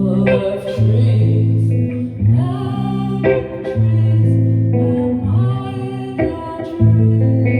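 Live band music: held low bass notes changing about every second or so, under guitar and singing.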